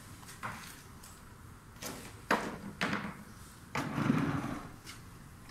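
A handful of irregular sharp knocks and thuds, with a longer, louder rustling thump about four seconds in.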